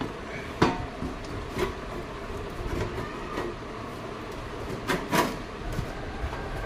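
Metal top cover of a power amplifier being worked loose and lifted off its rusted chassis: scattered metal knocks, rattles and scraping, the loudest a pair of knocks about five seconds in.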